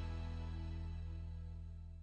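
Background music of sustained, held notes over a deep low tone, fading out steadily as the track ends.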